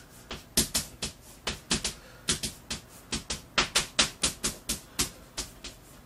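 Chalk tapping against a blackboard as characters are written stroke by stroke: a quick, irregular run of sharp clicks, several a second.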